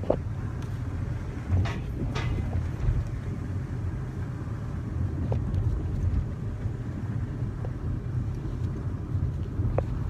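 Steady low rumble of a car in motion: road and engine noise. A few faint short squeaks or ticks come about two seconds in and again near the end.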